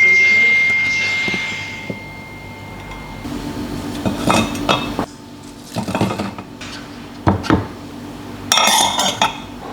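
Dishes and utensils clinking and clattering: a clear ringing note that fades away over about three seconds, then scattered clinks and knocks, with a short burst of clatter near the end.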